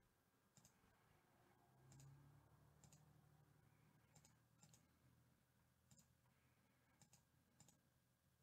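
Near silence broken by about eight faint, irregularly spaced computer mouse clicks.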